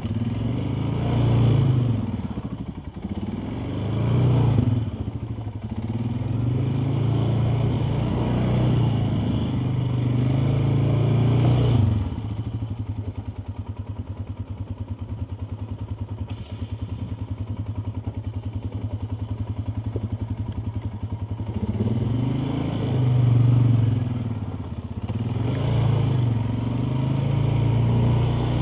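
ATV engine being ridden off-road, its revs rising and falling, settling to a steady idle about twelve seconds in, then revving up and down again about ten seconds later.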